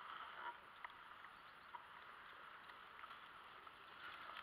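Near silence: faint outdoor background hiss with a few soft scattered ticks, growing slightly louder near the end.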